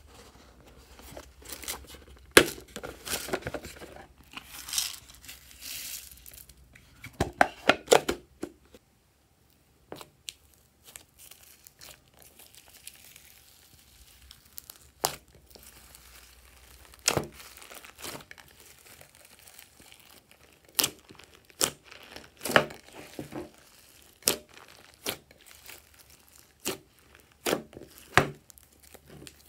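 Slime mixed with foam beads being stretched, pulled apart and squeezed by hand. Dense sticky crackling and tearing comes first, then separate sharp pops and clicks about once a second.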